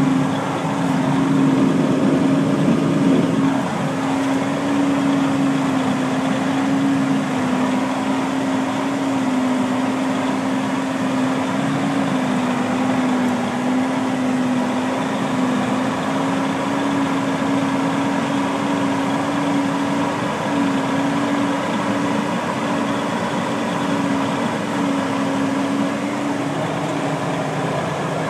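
Steady machine drone heard from inside a silage truck's cab: the truck's engine running with a Krone BiG X 1100 forage harvester chopping alongside, under one steady hum that wavers slightly.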